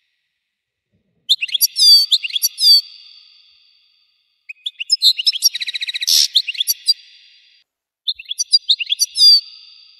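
European goldfinch singing: three bursts of quick twittering, sweeping notes separated by short pauses, the middle one with a fast rattling trill.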